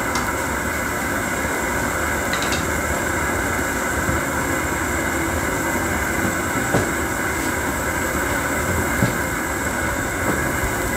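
Propane camp-stove burner running with a steady rushing roar under a pan of simmering soup, with a few light clicks.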